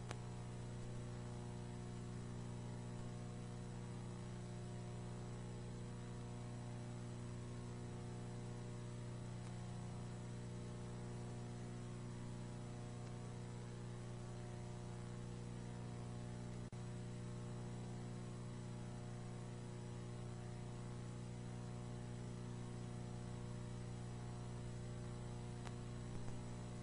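Steady electrical hum with an even hiss under it, unchanging throughout, with one faint click about two-thirds of the way through.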